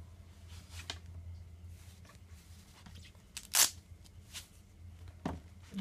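Kawasaki full-finger motorcycle gloves being handled and pulled off: scattered rustling and scuffing of the gloves, with one loud short rasp a little past halfway and a soft knock near the end, over a faint steady low hum.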